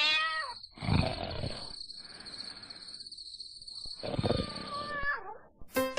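A cat growling and yowling: two rough, drawn-out calls, the second with a wavering pitch. Music with a clicking beat comes in near the end.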